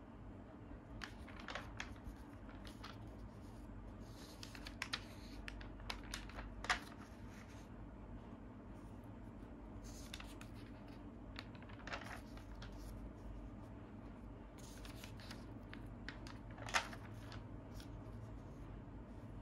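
Pages of an old comic magazine being handled and turned by hand: soft paper rustles and flicks, with two sharper snaps of a page, one about a third of the way through and one near the end, over a low steady hum.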